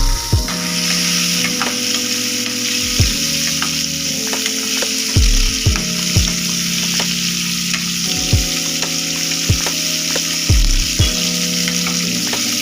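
Chopped onions frying in hot oil in a pan, a steady sizzle with occasional clicks of a spoon stirring.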